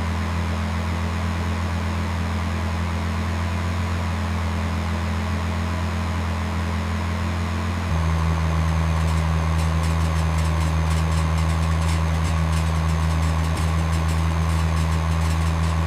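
Tractor engine running steadily with a low hum, its note dropping slightly and growing a little louder about halfway through, with a faint rapid ticking over it in the second half.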